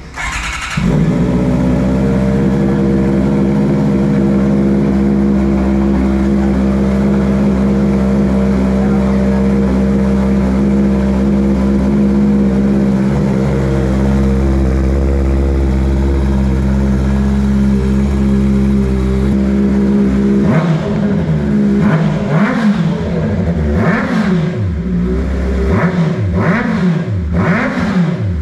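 Honda CB650R inline-four engine through a full titanium exhaust (headers to muffler, carbon tip), idling steadily and evenly. About two-thirds of the way in the throttle is blipped over and over, the revs rising and falling in quick sweeps.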